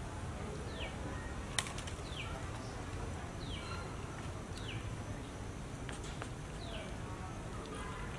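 A bird repeats a short high call that falls in pitch, five times at gaps of a second or more, over a steady low rumble. A single sharp click comes about one and a half seconds in.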